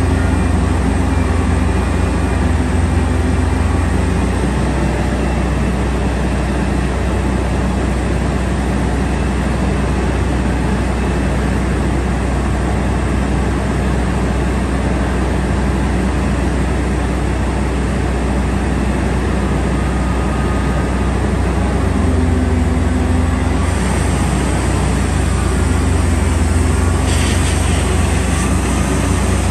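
A steady, loud low drone and rumble, with a higher hiss joining about two-thirds of the way through.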